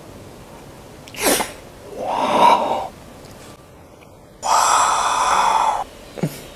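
Exaggerated breathy gasps and sighs of delight from a person tasting food: a short loud one about two seconds in and a longer one from about four and a half seconds. A quick falling whoosh comes about a second in, and another near the end.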